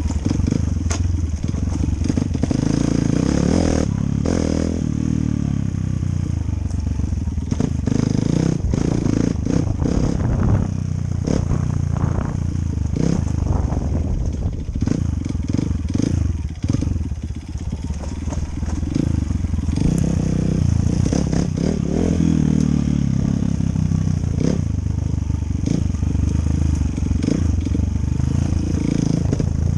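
Enduro dirt bike engine running under way, its pitch rising and falling with the throttle, with frequent clattering knocks as the bike rides over rough trail.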